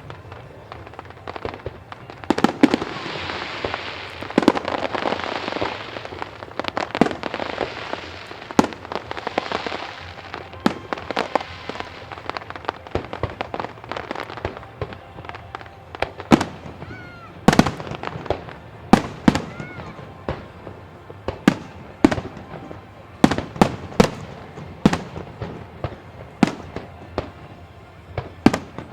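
Aerial fireworks shells bursting: a dense crackling stretch with bangs mixed in from about 2 to 10 seconds in, then a quick series of single sharp bangs, each with a short echo.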